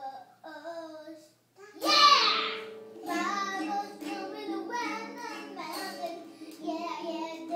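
A child singing, with a loud high note that falls in pitch about two seconds in, over sustained lower notes.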